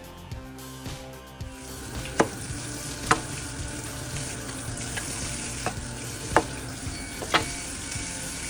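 Food cooking over high heat: a steady sizzling hiss, broken by about six sharp pops or clicks spread through it. Fading background music is heard in the first second or so.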